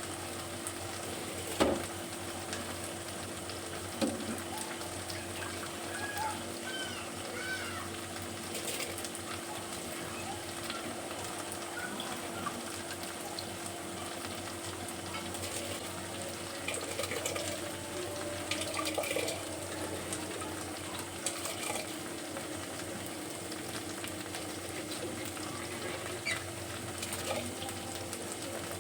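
Kitchen cooking sounds: a spiced masala sizzling in oil in a pan, with water at the boil as soaked rice is tipped gently into the pot. A few sharp utensil knocks early on, and a steady low hum underneath.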